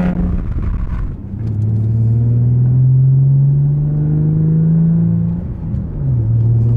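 2011–2014 Ford Mustang 3.7-litre V6 exhaust note through a Pypes Pype-Bomb black axle-back, a muffler delete with resonator tips. A rougher, noisier burst in the first second gives way to a steady drone held near 3,000 rpm; its pitch creeps up slightly, then drops back near the end.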